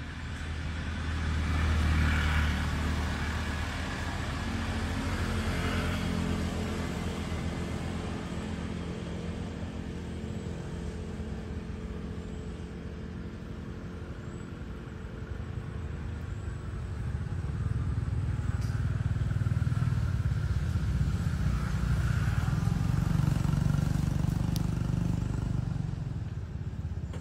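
Motor vehicle engine running steadily, with a low hum that grows louder about two seconds in and again for most of the last ten seconds.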